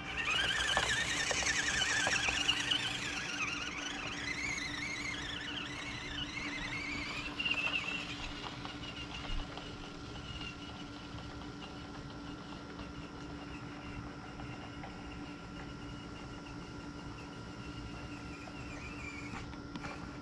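Small 1/24-scale RC rock crawler's electric motor and gearbox whining, the pitch rising and falling with the throttle, fading away over the first several seconds as the crawler drives off over grass and gravel. A faint steady hum remains afterward.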